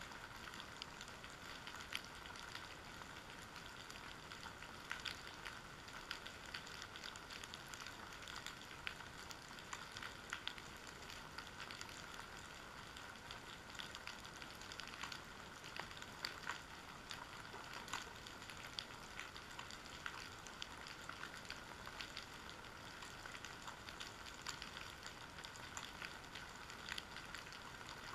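Underwater ambience picked up by a submerged camera on a rocky, kelp-covered seabed: a constant crackle of scattered sharp clicks over a steady hiss.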